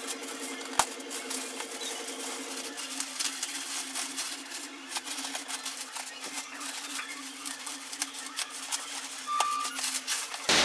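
Clear plastic wrapping crinkling and crackling in quick irregular clicks as hands pull and turn it around a leather bag, over a steady low hum.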